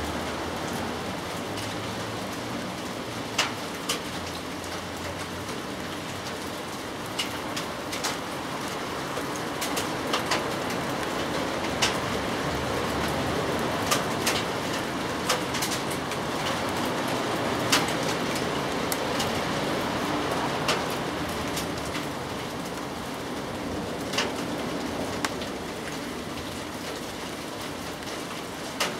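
Steady rain falling, with heavier drops dripping and tapping loudly at irregular moments, about one every second or two.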